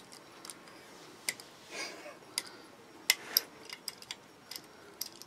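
Small, irregular metal clicks and ticks as a precision bit driver turns and seats on the screws of a folding knife during reassembly, with a brief soft rustle of handling about two seconds in.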